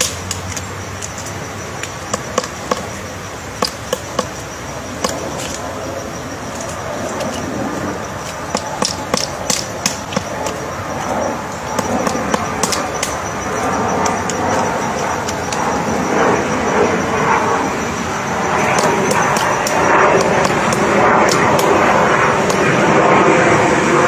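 Pileated woodpecker chiselling into a tree trunk: sharp single knocks of its bill on wood, coming at an irregular pace, thickest in the first half. A steady rushing noise builds up from about halfway through and becomes the loudest sound near the end.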